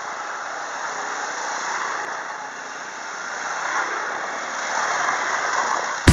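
A line of quad bikes (ATVs) riding past on a paved road: an even rush of engine and tyre noise that swells and fades a few times as the machines go by.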